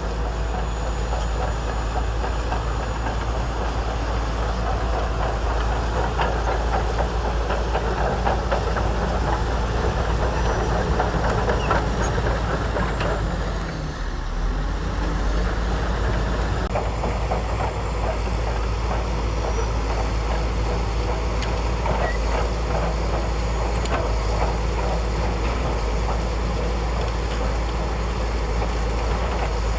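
Shantui DH17C2 crawler bulldozer's diesel engine running steadily, with repeated metallic clanks and rattles; the level drops briefly about halfway through.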